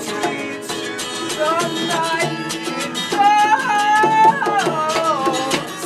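Live acoustic guitars strummed and picked with quick percussive strokes, in a fast rhythmic jam. A high melody that slides up and down in pitch comes in about three seconds in and fades near the end.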